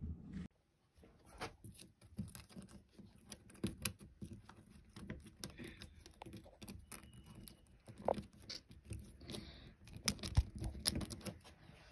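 Hands working at a door's metal pull handle and lock, heard close up: a run of irregular small clicks, taps and rustles, a few sharper clicks standing out near the end.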